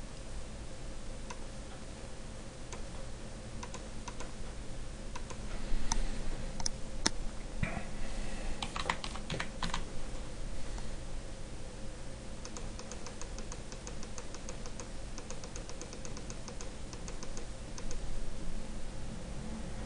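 Typing on a computer keyboard with mouse clicks: scattered keystrokes, then a fast, even run of keystrokes in the second half, over a faint steady hum.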